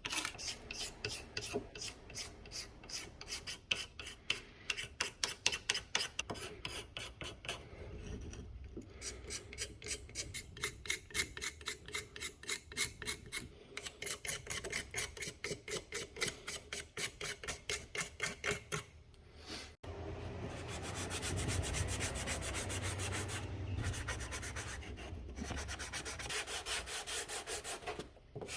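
Quick back-and-forth hand rubbing strokes with an abrasive, about three a second. After a brief break about two-thirds of the way through, the rubbing becomes denser and steadier with a low rumble.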